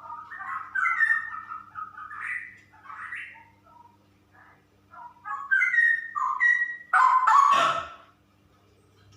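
Female straw-headed bulbul singing in quick, rambling bursts of rich, gliding phrases, with a short pause in the middle and the loudest phrase about seven seconds in, ending about a second later.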